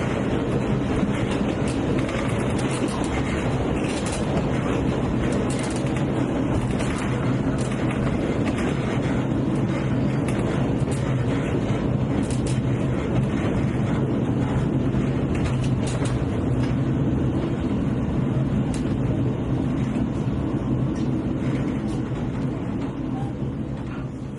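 Hungarian passenger train running, heard on board: a steady low rumble of wheels on track with scattered clicks and rattles. It grows quieter over the last few seconds.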